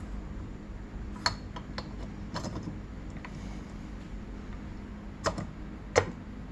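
Aluminium cylinder of a Honda CR85R two-stroke engine being slid down over the piston and the crankcase studs: a few light metal clicks and taps, the loudest about six seconds in as it seats on the crankcase.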